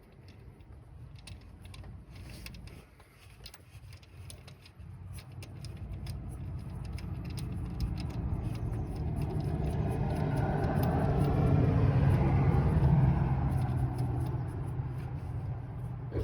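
A vehicle going past, its rumble and tyre noise building over several seconds to a peak about twelve seconds in, then fading. Light scattered clicks and taps sound throughout, and there is a sharp knock at the very end.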